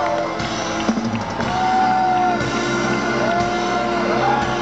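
Live rock music from a festival stage, heard from within the crowd: long held high notes that bend at their starts and ends, over a steady lower note and a dense band sound.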